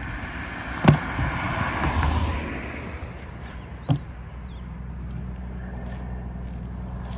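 A car passing on the road, with two sharp knocks of plastic traffic cones being set down on the asphalt, about a second in and about four seconds in. From the second knock on, a low, steady engine hum.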